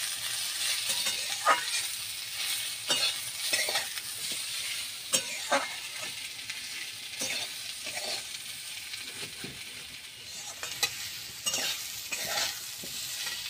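Bitter gourd, potato and onion frying in mustard oil in a metal wok, with a steady sizzle. A metal spatula stirs the pieces and scrapes the pan in irregular strokes as the vegetables are sautéed dry with the spices.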